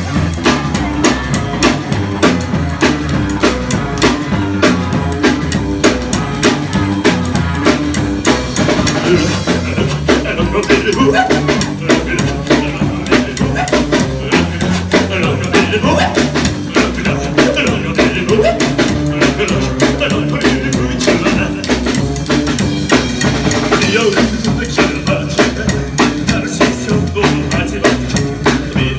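Live rockabilly band playing a boogie: drum kit keeping a steady, driving beat with upright bass and electric guitar, and a man singing into the microphone.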